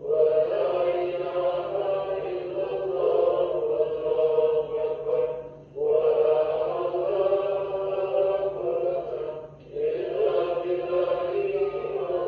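Voices chanting dhikr, the recitation of the names of God, in long, drawn-out sung phrases. The chant breaks off briefly for breath about halfway through and again about three-quarters of the way through.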